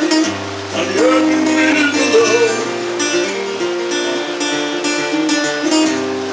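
Acoustic guitar played live, chords ringing and changing steadily, with the player singing briefly in the first couple of seconds.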